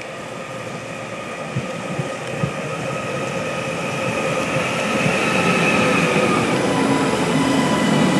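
Northern Class 331 electric multiple unit pulling into the platform and slowing, growing steadily louder, with a high whine of several tones that slowly falls in pitch. A few dull knocks come about two seconds in.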